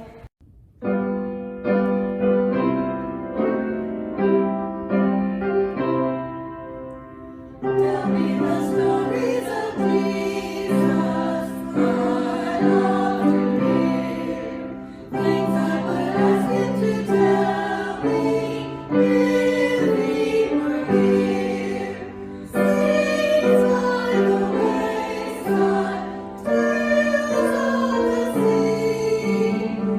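A hymn: a piano plays an introduction of separate chords for about the first seven seconds, then a choir comes in singing over the piano.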